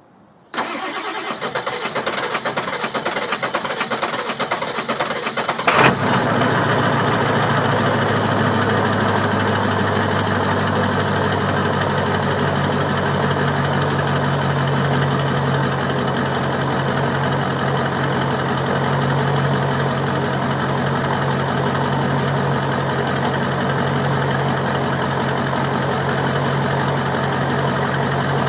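Car engine cranking on the starter for about five seconds, then catching and settling into a steady idle.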